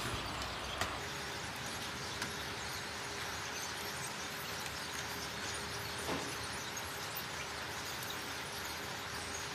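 Steady hiss of factory floor background noise with a faint steady hum, broken by a few light clicks and knocks of a TV panel and its metal frame being handled on a workbench, the clearest about a second in and about six seconds in.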